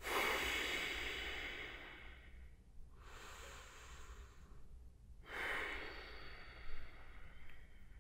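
A woman breathing slowly and audibly while holding a deep stretch: a long breath out at the start, a fainter breath in, then another long breath out just past the middle, with a soft bump near the end.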